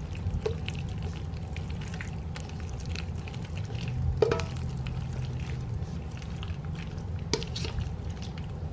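Thick, sauce-coated macaroni sliding out of a metal mixing bowl into a glass casserole dish, scraped along by a spatula: soft wet squelches, light scrapes and small taps, with a slightly louder knock about four seconds in.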